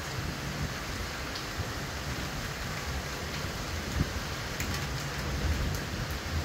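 Hurricane rain falling heavily as a steady hiss, with gusts of wind rumbling on the microphone and a few faint ticks in the second half.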